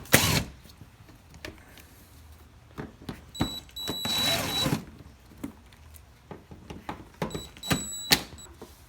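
Short bursts of a small power tool's motor whirring, one brief at the start and one of about a second midway with a thin high whine, among scattered clicks and knocks of fasteners and tools as a car's plastic fender liner is taken off.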